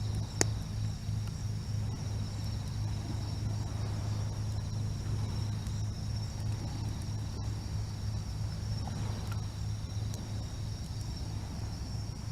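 Night insects chirring steadily in two high, unbroken tones over a steady low hum, with one sharp click about half a second in.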